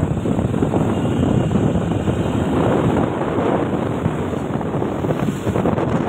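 Steady, loud wind buffeting the microphone while riding along a street, with vehicle engine and road noise from passing traffic underneath.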